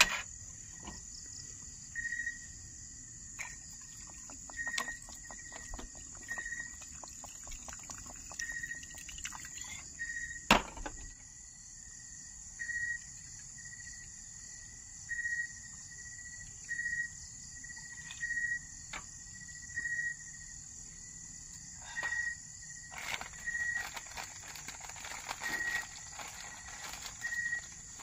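Steady high insect chorus in the open, with a short high chirp repeated every second or two. A single sharp click sounds about ten seconds in.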